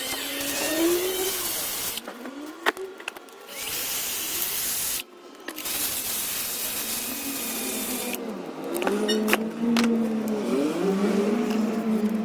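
A small electric motor running in spurts, its whine rising and falling in pitch as it speeds up and slows down. It cuts out briefly twice, with a few sharp clicks.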